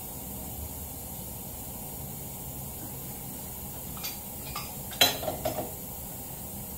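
A few light metal clinks, then a sharp metal clank about five seconds in with a couple of smaller clinks after it: a steel pipe wrench being picked up from the tools and set on the ATV's splined rear axle shaft. Before that, only a steady low background.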